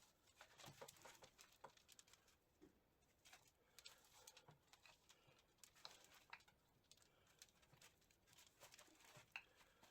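Near silence with faint, scattered clicks and light taps, irregular and spread through the whole stretch: small handling noises of parts and tools during gearbox disassembly.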